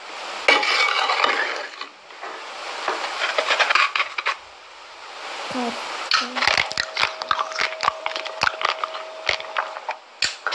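Gritty scraping and crunching with many sharp clicks: wet cement and brick chunks being stirred and scooped by hand on a ceramic plate. A faint steady tone runs behind it in the second half.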